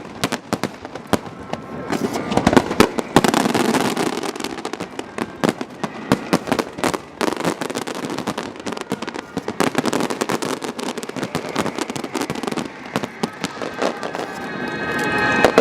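Fireworks going off: a dense, irregular run of sharp bangs and crackles over a continuous rumble.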